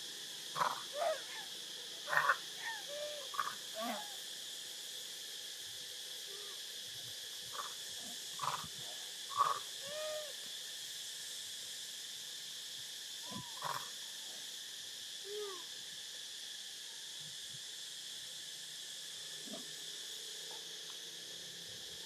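Infant long-tailed macaque giving short whimpering coo calls, each with a rising-then-falling pitch. They come in scattered bunches: several in the first four seconds, more around eight to ten seconds in, and a few around fourteen to sixteen seconds. A steady high-pitched hiss runs underneath.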